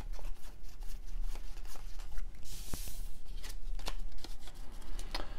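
1993 Topps baseball cards being flipped through by hand, one card slid off the stack after another: a run of light cardboard clicks and slides, with a brief swish about halfway through.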